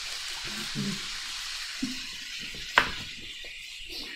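Food sizzling in a frying pan, a steady hiss, while a knife slices an onion on a cutting board. There is one sharp knock of the blade on the board a little under three seconds in.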